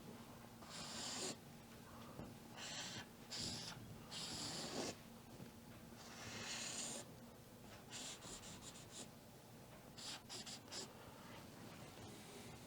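Faint scratchy paint strokes on canvas: about seven short strokes, one run of quick repeated dabs just past the middle, over a faint steady hum.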